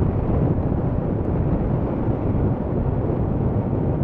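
Steady wind rush buffeting the camera microphone on a moving scooter at road speed. It is a low, even noise with no distinct engine note standing out.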